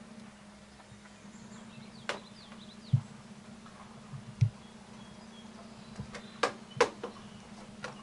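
Scattered footsteps and knocks on wooden deck boards, a few dull thumps and several sharp clicks, with brief faint bird chirps about two and a half seconds in over a steady low hum.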